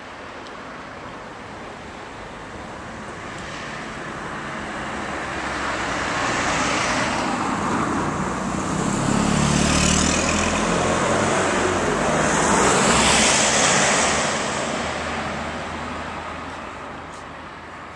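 Road traffic: motor vehicles driving past close by, their engine and tyre noise swelling up over several seconds to a peak about ten to thirteen seconds in, then fading away.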